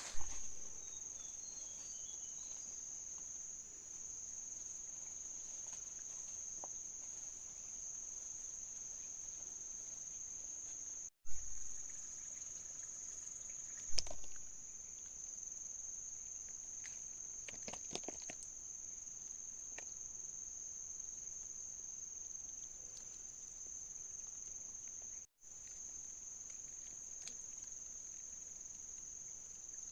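Steady, high-pitched insect chorus trilling without a break, with a few short knocks and thumps now and then.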